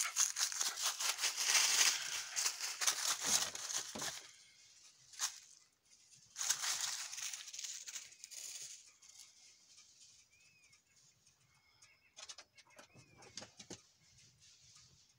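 Dry fallen leaves crunching and rustling under quick footsteps in three bursts, loudest over the first four seconds. Faint bird chirps come through in the quieter stretch near the end.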